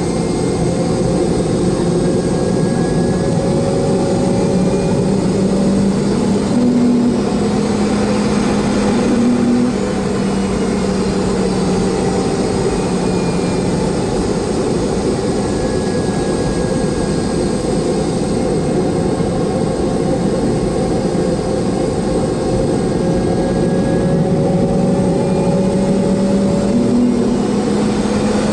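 Boeing 717's rear-mounted Rolls-Royce BR715 turbofan heard from the cabin while taxiing at low power. It makes a steady, loud rush of engine noise with a low drone that shifts slightly in pitch now and then.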